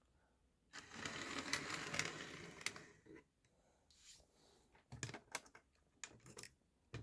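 Small electric model railway locomotive running on the track for about two seconds with a light mechanical rattle, then several sharp clicks and knocks of the model being handled.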